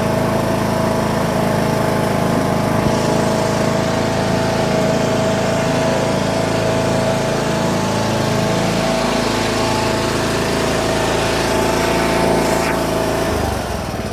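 Riding lawn mower's engine running steadily as the mower is driven, with a steady high whine over the engine note. Near the end the sound drops and changes as the engine slows.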